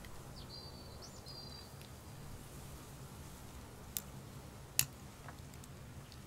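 Faint outdoor ambience with a short bird whistle near the start, two flat high notes with a quick rise between them. A few sharp clicks follow, the loudest about five seconds in, from small work with the hands at a wooden table.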